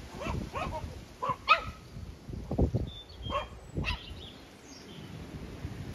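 Small dog yipping: a quick run of short, high yips, then two more after a pause, with a couple of dull thuds in between.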